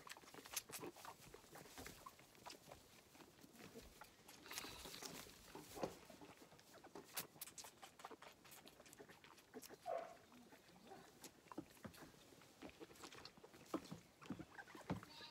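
Zwartbles lamb sucking at a milk-bottle teat: faint, irregular sucking and smacking clicks.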